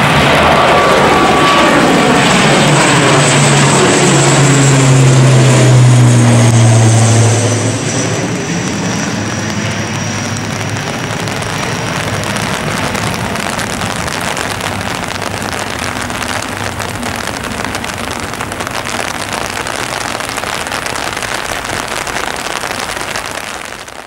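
ATR 72-600 turboprop airliner passing low overhead on its climb after takeoff: the drone of its twin Pratt & Whitney Canada PW127-series turboprops and six-bladed propellers, with a high turbine whine above it. Both fall in pitch as it goes over, loudest about six seconds in. The sound drops off sharply around eight seconds and carries on as a fainter, steady rumble as the aircraft climbs away, fading out at the very end.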